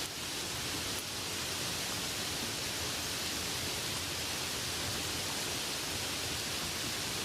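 Light rain falling steadily, an even hiss with no separate drops standing out.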